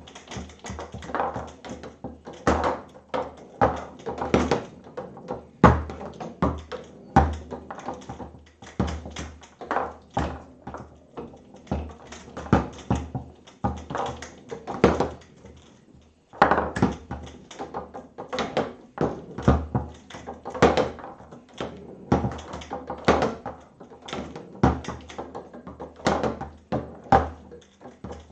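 Foosball table in play: the ball knocked back and forth by the plastic figures on the rods, in a run of quick, irregular clacks, several a second, with a short pause a little past halfway.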